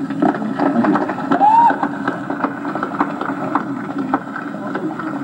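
Audience clapping and murmuring on a muffled old concert recording, with one short rising-and-falling whistle about a second and a half in.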